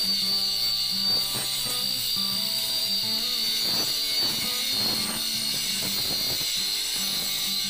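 Doliz BA730 angle grinder with a wood-cutting blade running at full speed and cutting into a thick solid wood plank: a steady high whine with rasping cutting noise through the middle, the blade kept spinning under heavy pressure.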